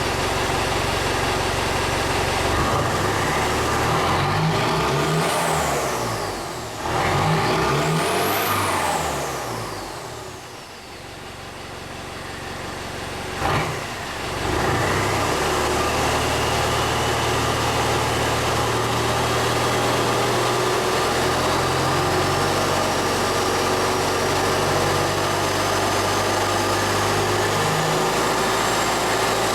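Turbocharged diesel engine running with no air filter on the turbo intake, revved twice so the turbo whistle rises and falls high above the engine note. After a brief sharp blip about halfway, it settles into a steady run while a thin whistle slowly climbs over the last several seconds.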